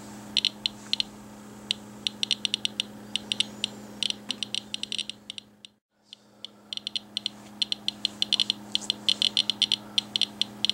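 Radiation Alert Inspector Geiger counter clicking at random intervals, several clicks a second and sometimes in quick runs, each click a decay detected from a rain-out wipe sample carrying radon progeny. A steady low hum runs underneath, and the sound cuts out briefly about halfway through.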